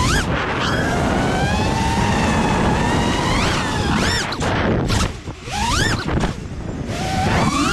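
FPV quadcopter's brushless motors (2306 size, about 1750 KV, on 6S) whining as they spin worn, slightly bent four-blade props. The pitch sweeps up and down sharply with repeated throttle punches, over a steady rush of wind.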